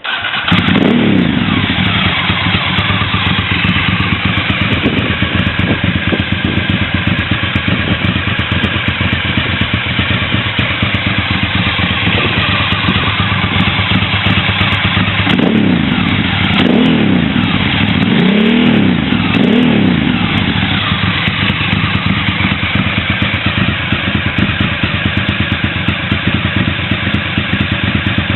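Ducati Monster S2R 800's air-cooled L-twin engine, breathing through DAM aftermarket exhausts, starts up and runs at a loud steady idle. It is revved in a few quick blips about halfway through before settling back to idle.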